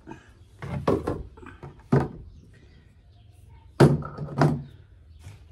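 Hollow knocks and thumps of a cut-open plastic motor-oil jug being handled and set down on a table, the loudest two close together near the end.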